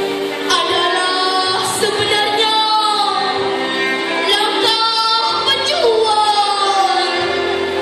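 A young female voice singing a slow, gliding melody over sustained instrumental backing music.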